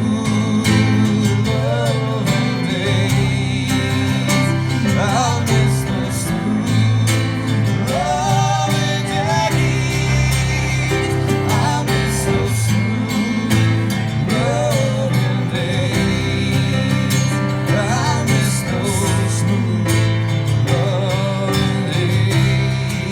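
Live band playing an instrumental passage with no lyrics: guitars over a steady bass, with a lead line that bends and wavers in pitch every few seconds.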